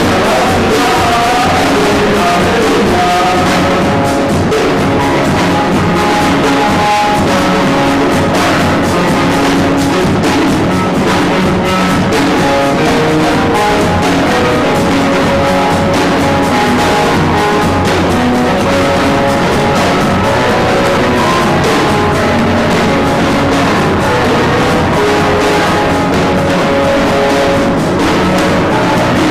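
Loud band music with a steady beat.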